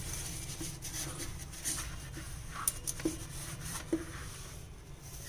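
Sponge scrubbing a removable fridge shelf or tray with dishwash paste, a faint rubbing with a few light knocks of the piece being handled.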